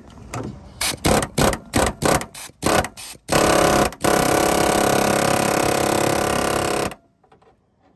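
A power wrench on a long extension and socket, working the bolt of a truck engine's spin-on filter canister to break it loose. It gives a string of short trigger bursts for about three seconds, then runs steadily for about four seconds and stops abruptly near the end.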